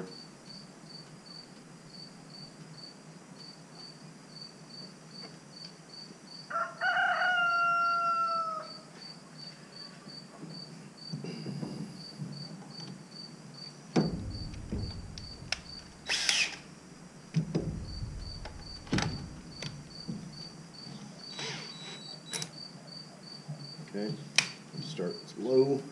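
Cricket chirping steadily, about two chirps a second. A drawn-out pitched call of about two seconds, falling at its end, sounds a few seconds in and is the loudest thing heard. Later come scattered knocks and clunks of a cordless drill being fitted onto a dummy distributor in the engine.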